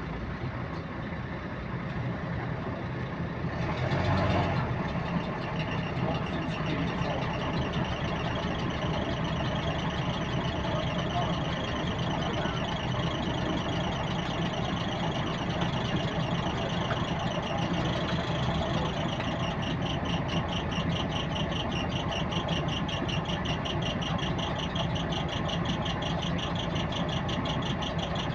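A bus's diesel engine running steadily, with a fast, regular clicking that keeps time with engine speed. The clicking stands out most clearly from about two-thirds of the way through. There is a short, loud rush of noise about four seconds in.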